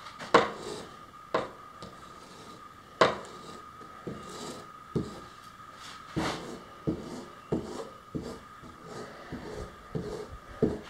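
Irregular taps and knocks as a brush dabs resin into a fibreglass cloth patch in a wooden mold, more frequent in the second half, over a faint steady high hum.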